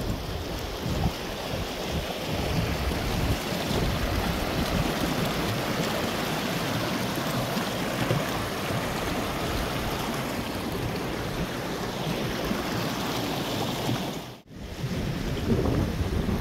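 Fast mountain stream rushing steadily over stones, with some wind rumbling on the microphone. The sound cuts out for a moment near the end, then comes back.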